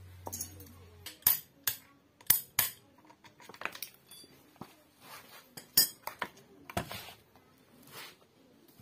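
Metal chainsaw engine parts and hand tools clinking and knocking as they are handled and set down on a concrete floor: a run of separate sharp clinks, irregularly spaced. A low steady hum stops about a second in.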